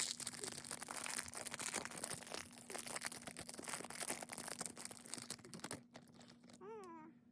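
Plastic blind-bag wrapper crinkling and tearing as a small collectible figure is taken out by hand: a dense run of crackles that stops about six seconds in. A brief pitched vocal sound follows near the end.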